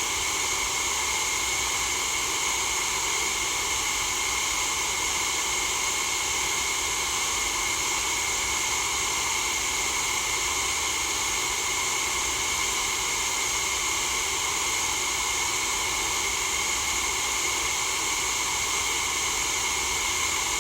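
Steady white noise: an even, unbroken hiss, strongest in the upper range, with a faint low rumble beneath and no change in level.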